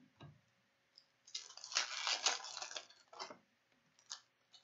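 Crinkling and rustling of a foil trading-card pack wrapper and cards being handled. A soft knock comes first, then a dense stretch of crinkling, followed by a few shorter crackles.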